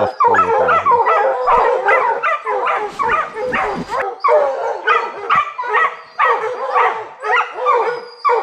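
Several bear-hunting hounds baying and barking without pause, their calls overlapping, several a second.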